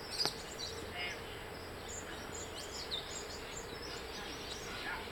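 Outdoor background noise with scattered faint bird chirps.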